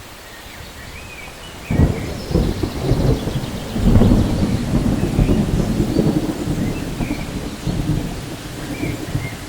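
Thunderstorm: soft rain hiss, then a sudden clap of thunder about two seconds in that rolls into a long low rumble. The rumble swells again around four seconds and slowly fades, with rain going on underneath.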